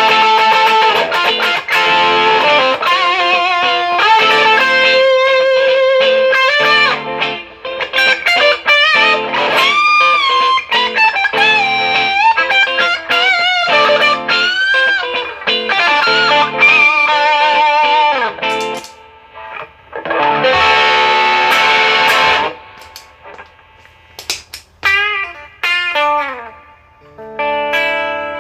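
Gibson Les Paul R9 electric guitar with Burstbucker 1 and 2 pickups, played through a Wampler Tumnus overdrive into a Marshall DSL1 amp, with mildly driven lead lines full of string bends and vibrato. About 20 s in a chord rings out, followed by quieter, sparser notes.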